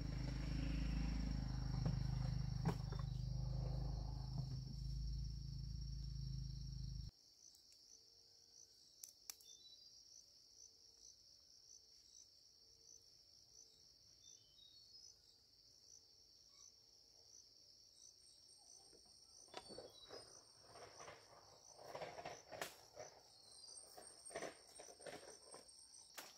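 Insects chirring in a steady high-pitched drone. A louder low rumble fills the first seven seconds and cuts off abruptly; from about twenty seconds in come scattered light knocks and rustles.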